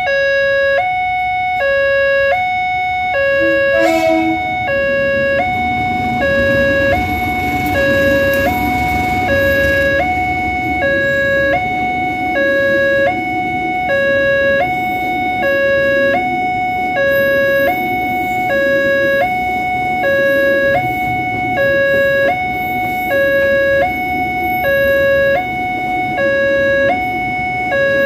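Railway level-crossing warning siren sounding steadily in a two-tone hi-lo pattern, switching between a lower and a higher tone about every half second. A sharp knock comes about four seconds in, and a low rumble runs underneath from about five seconds in.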